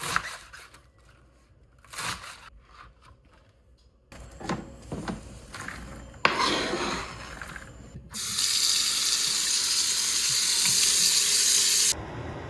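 Kitchen tap running into a sink for about four seconds, loud and steady, then cut off abruptly. Before it come quiet clicks and handling sounds.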